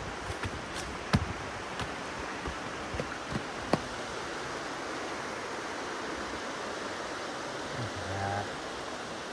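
Steady rushing of a flowing stream, with a few sharp clicks in the first four seconds.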